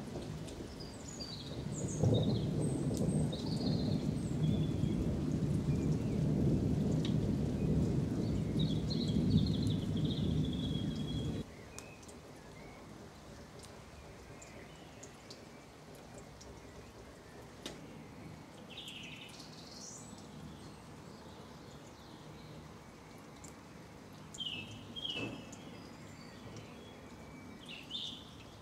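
Eurasian blackbirds singing their evening song in short fluting phrases every few seconds, while a long low rumble of distant thunder runs under them and stops abruptly about eleven seconds in.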